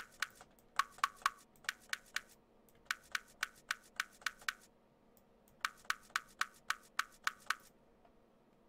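Runs of sharp clicks from a computer mouse and keyboard, about three or four a second, with short pauses between runs and stopping shortly before the end. A faint steady hum lies underneath.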